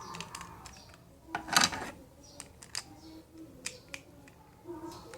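Plastic parts of a Beyblade string launcher being handled and fitted together: scattered sharp clicks and taps, with a louder rattling clatter about a second and a half in.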